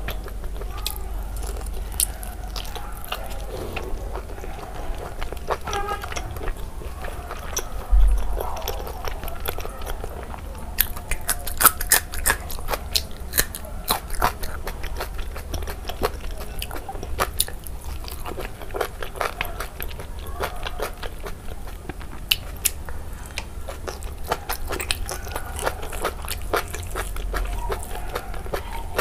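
Close-miked chewing and biting of oily pork belly curry and rice: wet, smacking mouth sounds with many sharp little clicks and crackles. A single low thump about eight seconds in.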